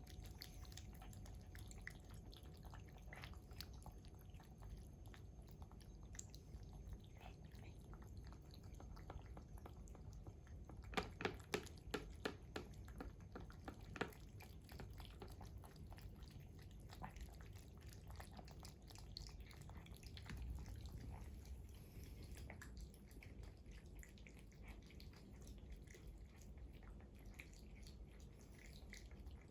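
Cats eating and drinking: a run of small, soft clicks of chewing and lapping, with a cluster of louder clicks about halfway through.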